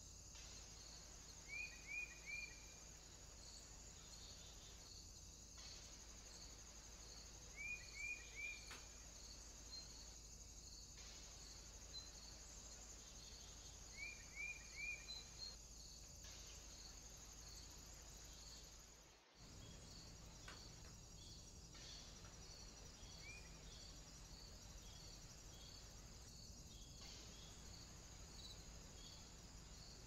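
Faint, steady chorus of insects with a regular high chirping about twice a second. Three times, about every six seconds, a bird gives a quick run of three short downward chirps, and once more a single chirp later on. The sound cuts out for a moment about two-thirds of the way through.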